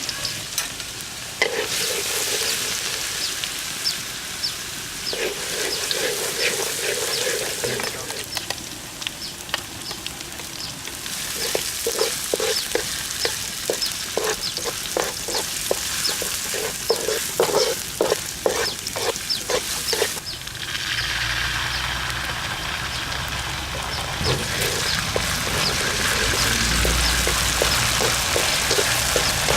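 Food frying in hot oil in a pan, a steady sizzle, with a utensil stirring it and clicking against the pan in a quick run of knocks through the middle. In the last third the sizzle grows fuller and a little louder.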